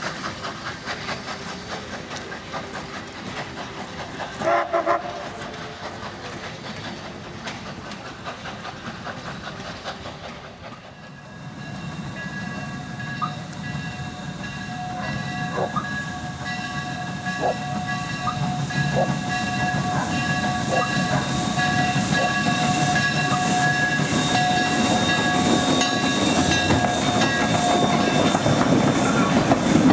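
Steam locomotive working a passenger train: a rhythmic exhaust beat as it pulls away, with a short whistle blast about four seconds in. Then, as the locomotive approaches, its steam whistle sounds long and steady for about sixteen seconds over the growing chuffing and rumble, which get louder as it passes close.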